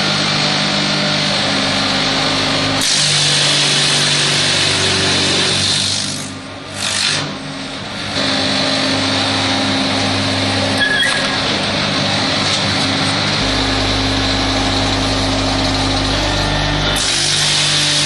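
Wood lathe turning wood, a steady hiss of cutting that changes abruptly a few times as the footage cuts, over background music with held low notes.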